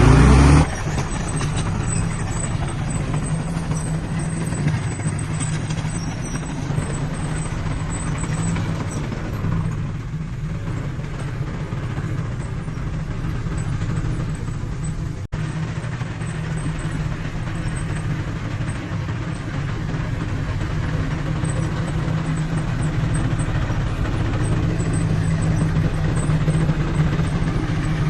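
Heavy earthmoving machine's diesel engine running steadily under work, with a loud burst in the first half-second.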